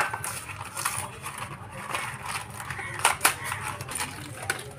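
Packaging of a new wheel bearing being handled: a cardboard box opened and the bearing pulled from a plastic bag, crinkling and rustling with a few sharp clicks.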